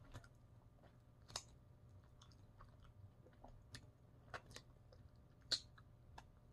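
Faint chewing and wet mouth clicks of someone eating and licking sauce off her fingers, with sharper smacks about a second and a half in and again near the end.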